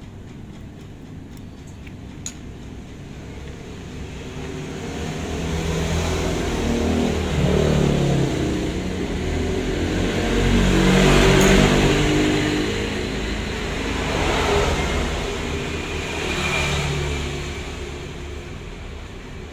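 Motor vehicles passing by, their engine sound swelling and fading in several waves and loudest about halfway through. A single small click sounds about two seconds in.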